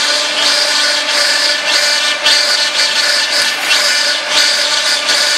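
Automatic silicone sealant tube filling and sealing machine running: a steady mechanical hum with rasping noise and repeated short strokes from its stations cycling at uneven spacing.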